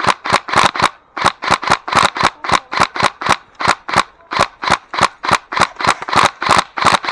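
Airsoft gun firing a long string of rapid, evenly spaced shots, about six a second, with a brief pause about a second in.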